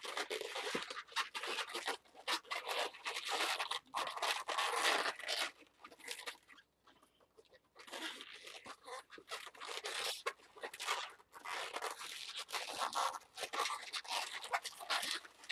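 Inflated latex twisting balloons rubbed and twisted against each other by hand, making a dense crackly rubbing. It comes in two spells with a lull of about two seconds in the middle.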